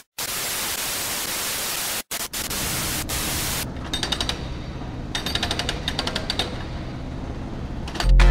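Loud TV static hiss with two brief dropouts, then a construction sound effect: short bursts of rapid mechanical hammering, like a drill or jackhammer. Intro music with heavy bass cuts in just before the end.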